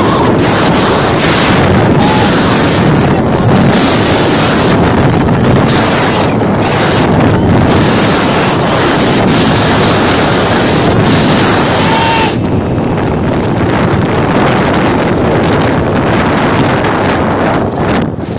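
Heavy wind buffeting a phone's microphone on a moving motorcycle: a loud, steady rushing that masks everything else, easing slightly about twelve seconds in.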